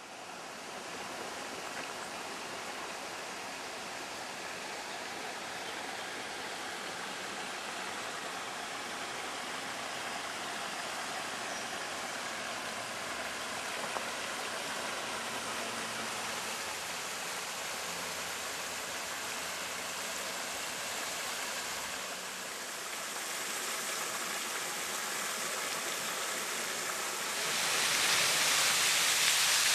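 Steady rush of flowing river water. Near the end it grows louder and brighter as a small waterfall splashing into a rock pool takes over.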